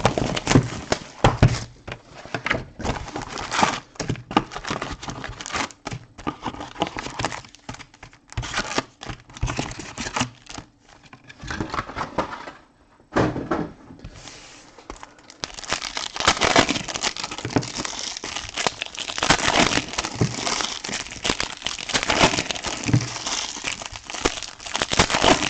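The wrapping of a Topps Chrome trading-card hobby box and its foil packs being crinkled and torn open by hand. It is a dense run of crackling and sharp clicks that pauses briefly about halfway and then picks up again, more steadily, toward the end.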